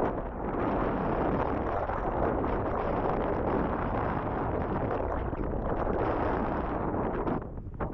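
Wind buffeting the microphone: a steady rushing noise that eases off near the end.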